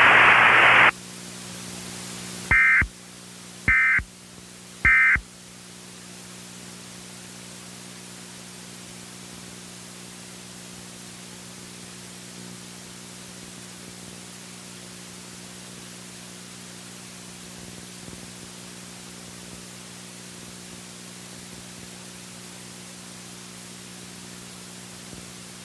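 Three short bursts of Emergency Alert System data tones, about a second apart: the End of Message code that closes the alert. After them comes a steady hiss of static with a low hum.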